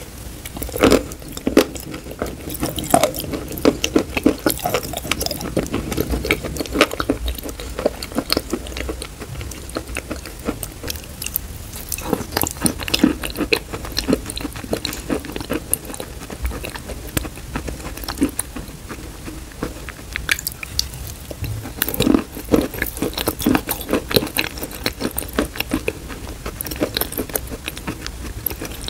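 Wet clay paste being eaten and stirred with a spoon in a glass bowl, close to the microphone: a steady run of irregular wet clicks and smacks from the mouth and the spoon working through the paste.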